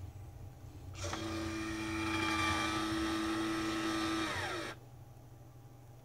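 Nescafé Dolce Gusto Drop capsule machine's pump starting about a second in with a steady whine, then sliding down in pitch and cutting off after about four seconds as the brew finishes.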